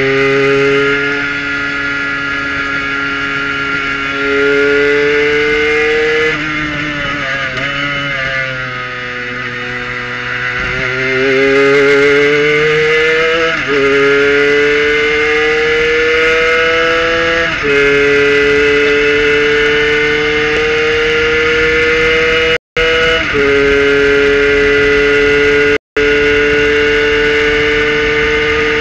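Kohler-powered Prototype 1 race car's engine heard from the cockpit under hard acceleration. Its note climbs through each gear and drops sharply at upshifts about six, thirteen, seventeen and twenty-three seconds in. The pitch also sags and recovers once around nine seconds in, and the sound cuts out briefly twice near the end.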